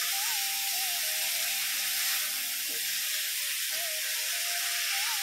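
Shredded cabbage and potato pieces sizzling in hot oil and masala in a steel kadhai while a spatula stirs them, with a couple of spatula scrapes against the pan. A faint looping background tune plays over it.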